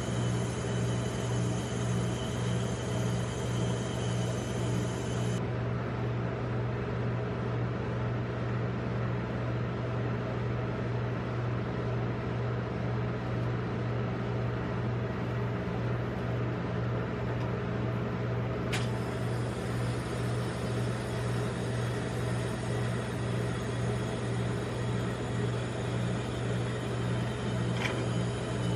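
Steady low hum of the rolled-ice-cream machine's refrigeration unit running under its steel cold plate, with a faint click about two-thirds of the way through and another near the end.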